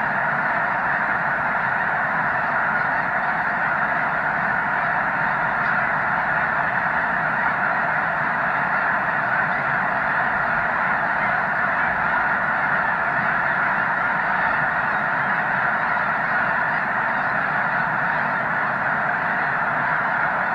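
A huge flock of snow geese calling all at once: a dense, unbroken din of honking at a steady level, with no single call standing out.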